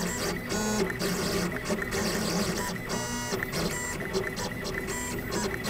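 Gravograph M20 three-axis engraving machine running a diamond-drag engraving job on an anodized aluminium plate. Its stepper motors whine in short tones that keep changing pitch, stopping and starting as the head moves through the lettering.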